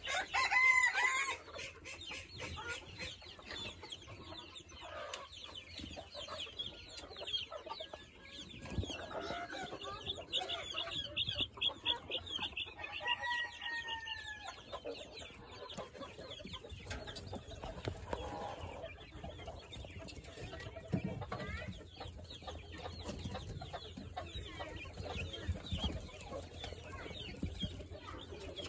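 A flock of Coturnix quail chirping and calling in their pen: a steady run of small, rapid chirps, with a louder call near the start and a falling call about 13 seconds in.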